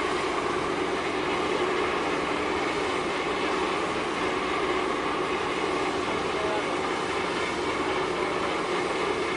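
Steady, even drone of ship diesel engines, from a harbour tug and a large container ship passing close by, with several held hum tones over a rushing noise.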